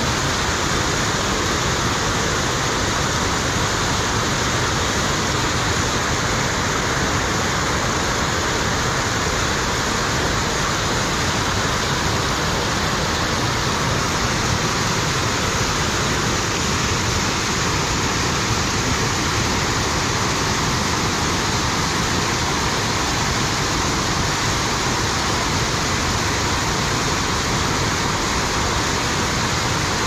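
Waterfall: water cascading over stepped rock ledges, a steady, unbroken rush.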